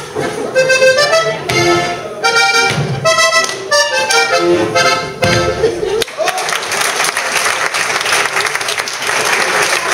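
Lively accordion dance tune that cuts off abruptly about six seconds in, followed by a crowd applauding and clapping.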